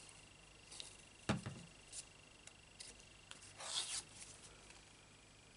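Paper-crafting handling sounds: a single knock about a second in, a few small clicks of cardstock, then a brief rub as a hand presses a glued piece of cardstock down onto the card.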